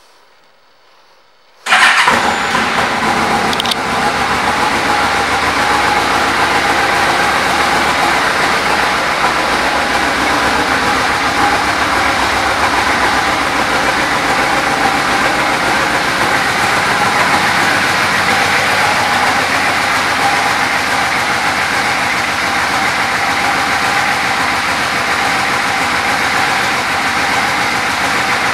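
A 2007 Yamaha Royal Star Tour Deluxe's 1300 cc V4 engine starts about two seconds in and then idles steadily.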